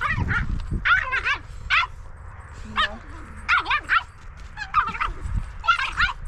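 A husky and a small puppy playing, yipping and whining: a string of short, high-pitched yips in quick clusters, with a low rumble underneath.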